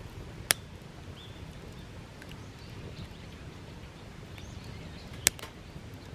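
Wood campfire crackling, with two sharp pops, one about half a second in and one near the end, over a low steady rumble. Faint bird chirps in the background.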